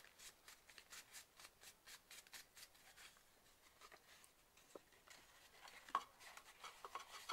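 Near silence with faint rustling and light ticks of hands handling a small folded-paper concertina book with card covers, squeezing it and opening out its pages; a few faint taps come about six seconds in.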